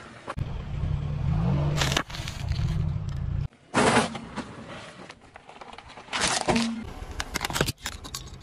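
A car tyre rolling slowly over small objects on asphalt, in short cuts, under the low rumble of the car. Sharp crunches sound about four seconds in and again a little after six seconds as brittle things are crushed, and a run of quick cracks near the end as plastic sunglasses break under the tyre.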